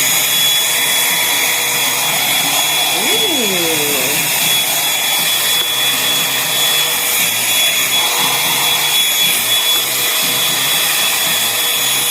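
Revlon One-Step Hair Dryer and Volumizer running steadily: rushing air from its fan with a constant high motor whine.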